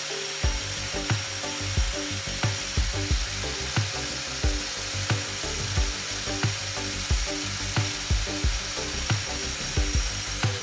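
Angle grinder with an abrasive disc running steadily while a drill bit held in a sharpening jig is ground against it. The grinder starts to slow right at the end. Background music with a steady beat plays over it.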